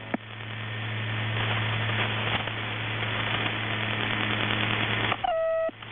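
Shortwave radio static through a receiver in upper sideband: an even hiss cut off below about 4 kHz over a steady low hum, swelling during the first second. A little after five seconds a short steady tone with overtones breaks in.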